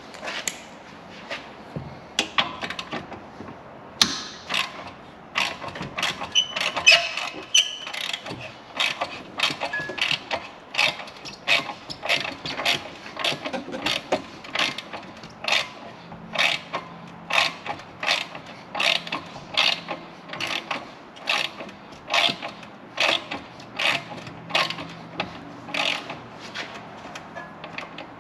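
Half-inch drive ratchet wrench clicking as it works an exhaust mounting bolt on a side‑by‑side: a few irregular knocks and clicks at first, then a steady run of repeated ratchet strokes, roughly one to two a second.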